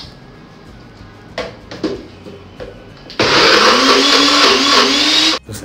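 Electric blender motor running at full speed for about two seconds, its pitch rising slightly, then cutting off suddenly. A few light knocks come before it.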